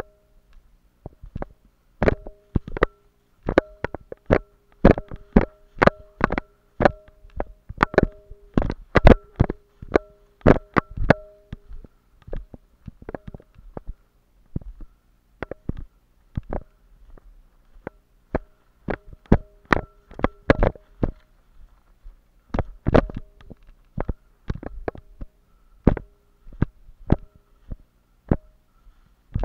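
Footsteps crunching through dry fallen leaves and brush, irregular and sparser for a few seconds in the middle, with a faint bell-like ringing heard between the steps.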